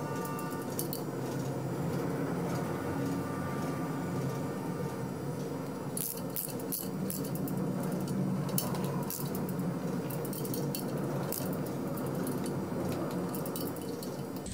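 Socket ratchet clicking in short runs, with light metal clinks, as the bolts of the Jaguar XK6 engine's rear crankshaft seal housing are tightened down evenly, over a steady low hum. The clicks come thickest from about halfway through.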